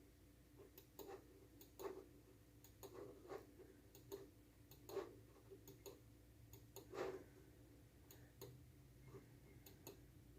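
Faint, irregularly spaced clicks of buttons being pressed as a password is entered on a home surveillance DVR, with a faint steady hum underneath.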